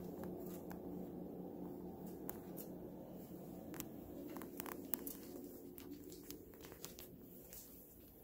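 Faint steady room hum with scattered light clicks and rustles.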